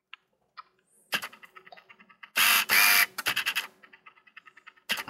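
Scattered clicks of computer keyboard keys being pressed, with two louder rustling scrapes close together about two and a half seconds in.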